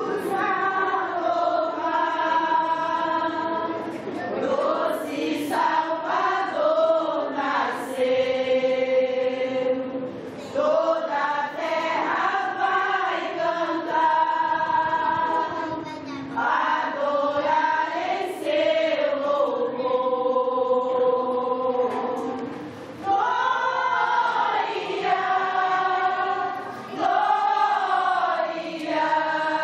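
A women's choir singing, holding long notes in phrases with short breaks between them.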